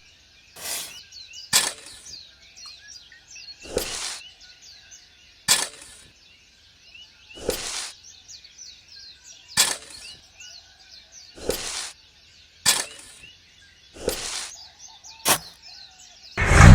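Small birds chirping continuously, with about ten sharp taps or scrapes roughly every one to two seconds, alternating short and slightly longer ones; the taps are the loudest sound.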